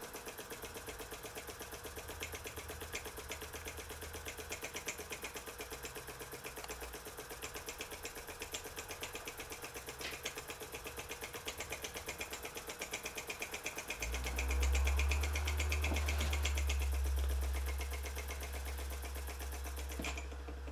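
Liney 1 miniature single-cylinder oscillating steam engine running fast, a rapid, even ticking of its exhaust beats over a steady hum. About two-thirds in, a louder low rumble joins it and runs until shortly before the end.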